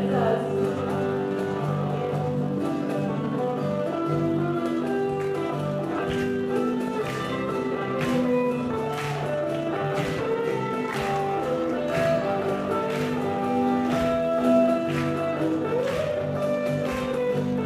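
Live band playing an instrumental passage without vocals: acoustic guitar and electric bass under long held notes, with a regular beat about once a second from about six seconds in, from the cajón.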